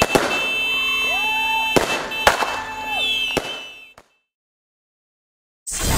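Fireworks going off: several sharp bangs in the first three and a half seconds, with sliding whistles and a steady high tone behind them. The sound then cuts to silence, and a new noisy sound starts just before the end.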